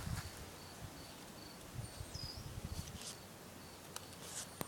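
Outdoor garden ambience: a steady run of short high chirps, two or three a second, that stops about a third of the way in, and a bird's whistled note falling sharply in pitch, heard twice. Low rumbling bumps in the first half.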